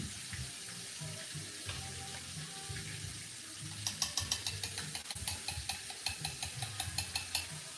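Quiet stovetop cooking sounds: a low steady hum, then from about halfway in a run of quick light crackles and clicks, several a second, from stirring and frying at the stove.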